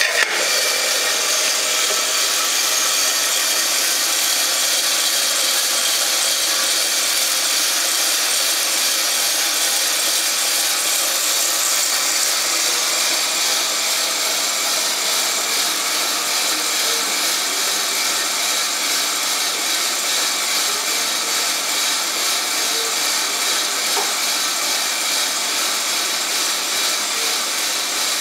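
Small electric drum coffee roaster running just after being charged with green coffee beans, the beans tumbling in the rotating drum: a steady rushing noise of drum, beans and fan, with one short knock at the start.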